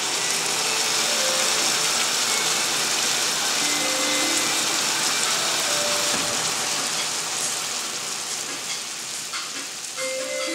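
Pasta, broccoli and cherry tomatoes sizzling in a hot frying pan: a steady hiss that slowly fades over the second half.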